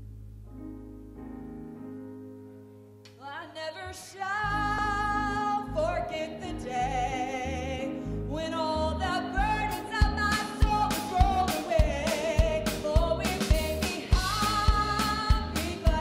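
A live worship band plays a song: quiet held low notes at first, then a woman's lead voice comes in about three seconds in with the band filling out behind her. From about ten seconds in, drums keep a steady beat under the singing.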